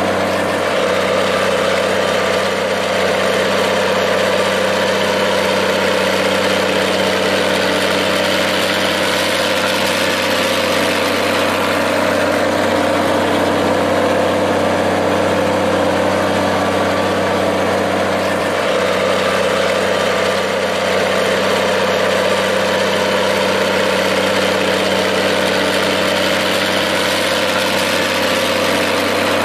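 Minneapolis-Moline tractor engine running steadily, with an even, unchanging pitch.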